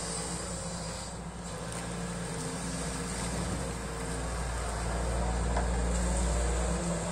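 Sany SY215C hydraulic excavator's diesel engine running steadily while it digs and swings its boom. The engine note grows louder from about five seconds in, then eases just before the end.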